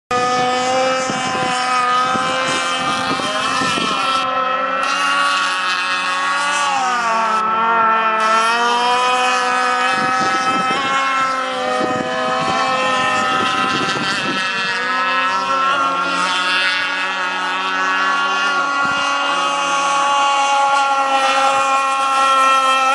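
Gasoline RC racing boat's small two-stroke engine running at high revs, a steady high-pitched drone whose pitch dips and climbs again several times as the throttle is eased and opened through turns.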